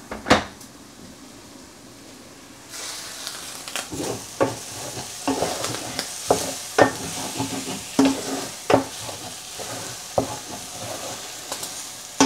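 Ugali being made: maize flour is stirred into boiling water in a pot, and a spoon knocks against the pot once or twice a second over a steady hiss that starts about three seconds in. A single knock comes right at the start.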